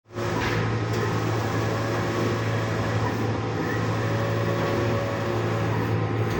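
Printing machine running steadily: an even mechanical whir over a strong low hum.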